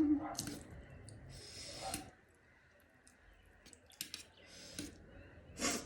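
Close-up eating sounds: chewing with wet mouth clicks and smacks, broken by a few short sharp sounds, the loudest near the end.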